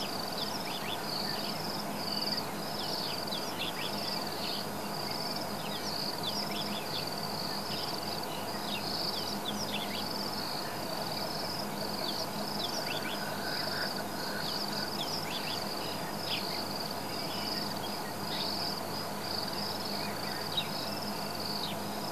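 Steady chorus of insects, a high, shrill, pulsing trill that never stops, with many short falling chirps scattered through it.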